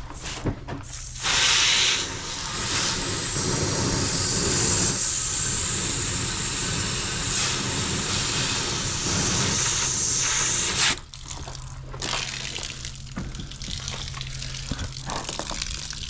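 Water from a garden hose jetting into an RV water heater tank to flush out hard-water sediment: a loud, steady hiss that starts about a second in and cuts off suddenly about eleven seconds in. Quieter water draining from the tank follows.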